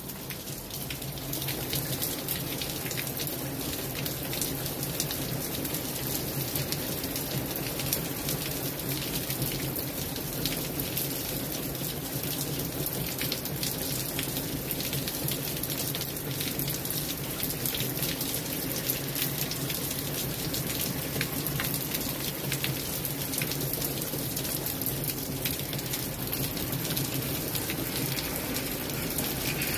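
Steady rainfall, an even hiss dotted with the ticks of individual drops striking the ground.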